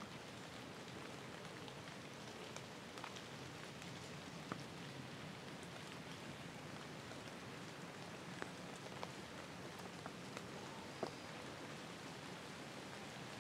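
Light rain falling steadily: a soft, even hiss with scattered single drops ticking.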